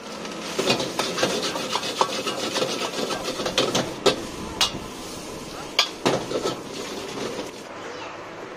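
A steel ladle scraping fast against a wok as fried rice is stirred and tossed, with a few sharp metal clanks about four to six seconds in. It grows quieter near the end.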